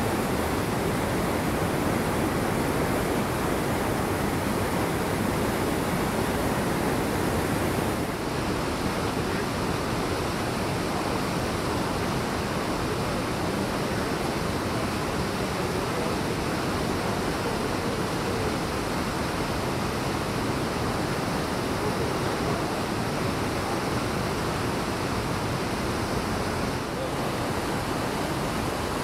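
Rushing creek water tumbling over rocks in rapids: a steady, even rush whose tone shifts slightly about eight seconds in.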